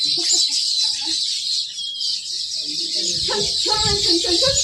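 Many small birds chirping constantly in high, overlapping calls. About three seconds in, a chicken starts clucking in lower, throaty notes.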